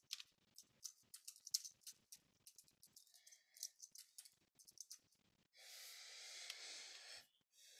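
Faint computer keyboard typing: a quick, uneven run of key clicks as a short phrase is typed. Near the end comes a soft breath into the microphone.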